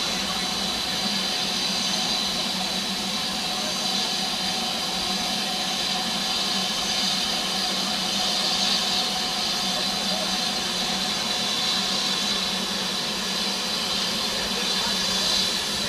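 BR Standard Class 4 2-6-4 tank steam locomotive standing with steam hissing steadily from it, with no exhaust beats.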